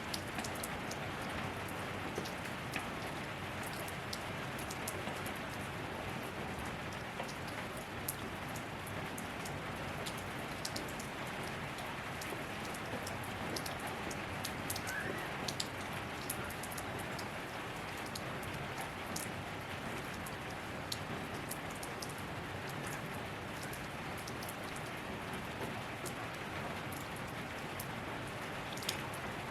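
Steady rain falling, with a constant hiss and many individual drops ticking sharply on surfaces.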